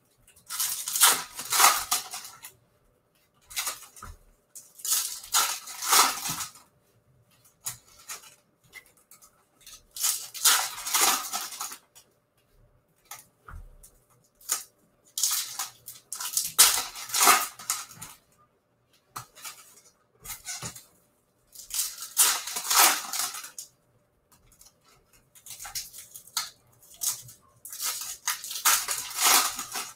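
Foil wrappers of Topps Chrome baseball card packs crinkling as they are handled and torn open. The crinkling comes in bursts of one to two seconds every few seconds, with quiet between them.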